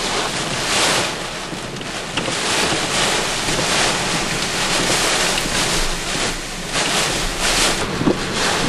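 Hurricane wind with driving rain blowing hard across the microphone: a dense rushing noise that swells and eases in gusts.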